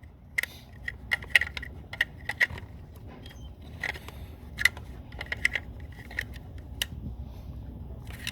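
Irregular light metallic clicks and clinks of small parts being handled, some with a brief ring, over a low steady background rumble.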